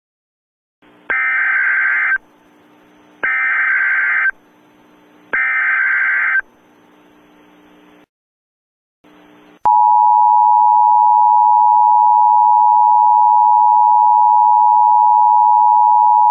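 Emergency Alert System tones: three one-second bursts of SAME header data screech about two seconds apart. After a short pause, the loud, steady two-tone EAS attention signal begins about nine and a half seconds in.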